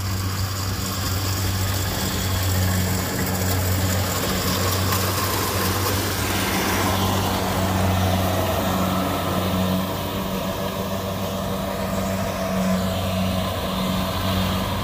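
A Kubota DC-70 combine harvester's diesel engine running steadily with a low hum while the machine cuts and threshes rice.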